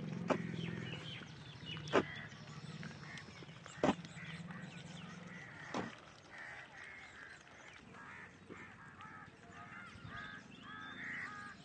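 A long-handled digging hoe chopping into damp soil, four strikes about two seconds apart, over a low hum. Birds chirp in short, repeated calls in the second half.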